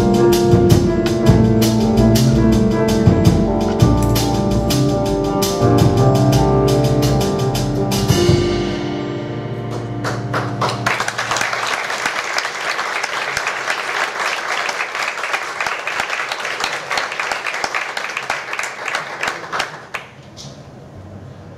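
A live jazz group with piano, double bass and drum kit plays the closing bars of a tune, ending about eight seconds in and leaving the last chord to ring out. Audience applause then rises and carries on for about ten seconds before dying away near the end.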